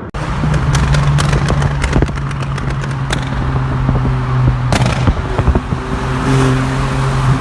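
Smart Fortwo 451 turbo's 1.0-litre three-cylinder engine running with a steady note while its exhaust crackles and pops in rapid clusters, with a couple of louder bangs about five seconds in. These are the pops and crackles of a pops-and-bangs tune.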